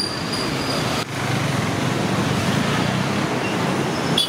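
Steady roadside traffic noise, an even rumble of passing vehicles.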